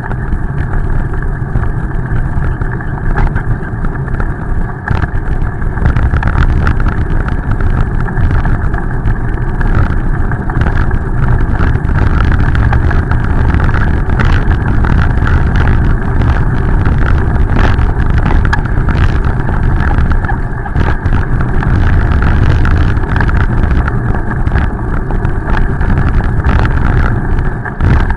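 Steady, loud rushing noise of a bicycle ride picked up by a bike-mounted camera: wind on the microphone and tyres on wet pavement, with scattered small knocks from bumps in the road.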